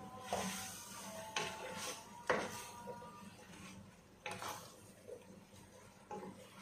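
Wooden spatula stirring chunks of chicken and vegetables in a coated cooking pot, knocking and scraping against the pot's sides several times, the loudest knock a little over two seconds in.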